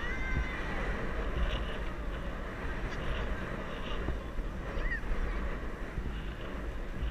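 Steady wind rush on the microphone and road noise from a moving vehicle. Brief high-pitched calls come through near the start and about five seconds in.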